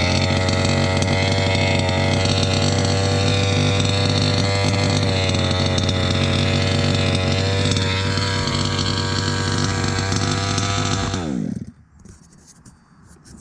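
Rovan Baja 5B RC buggy's small two-stroke petrol engine running at high, steady revs, then dropping and stopping abruptly about eleven seconds in. A few faint clicks follow.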